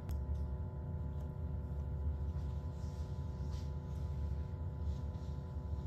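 Steady low machine hum with a faint, even drone of several steady tones, and a single faint click right at the start.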